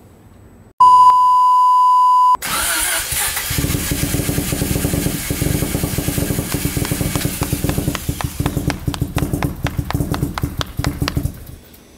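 A loud steady electronic bleep lasting about a second and a half, then a bridgeported Mazda 13B-REW rotary engine catches on a cold first start and runs at a low idle of about 400 rpm. Sharp regular cracks come through over its last few seconds, and then the engine dies suddenly.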